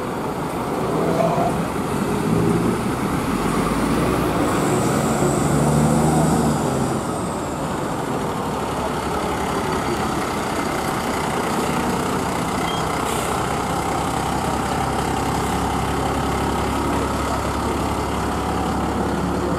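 Diesel fire engine running as it pulls past, its engine note louder and rising and falling for the first several seconds, then settling into a steady low rumble.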